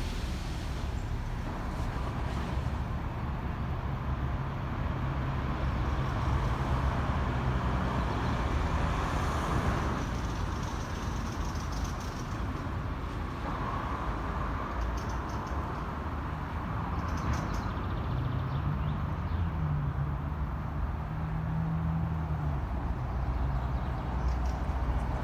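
City road traffic: a steady rumble of passing cars and heavier vehicles, with one engine's hum standing out for a few seconds past the middle.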